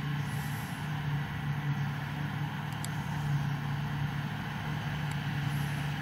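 New Holland CX8.70 combine harvester and Case IH Magnum 335 tractor running side by side at work: a steady, unbroken engine and machinery drone as the combine cuts barley and unloads into the tractor's chaser bin.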